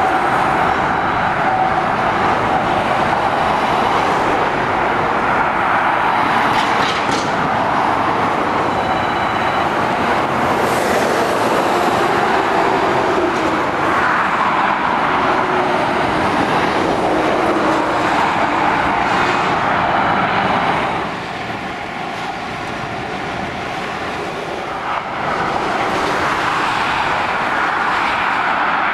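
Continuous road traffic noise from lorries, vans and cars passing on a busy trunk road, mostly tyre and engine noise from the heavy goods vehicles. It eases a little about three-quarters of the way through, then builds again as more lorries approach.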